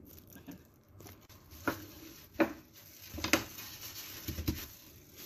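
A handful of sharp, scattered knocks and taps over soft rubbing and rustling: a plate and a plastic-wrapped wooden cutting board being handled, with plastic-gloved hands smoothing over the wrap.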